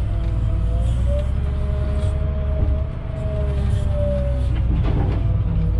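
Volvo wheel loader's diesel engine running steadily, heard from inside the cab while the machine pushes gravel, with a thin whine above the rumble that wavers slightly in pitch.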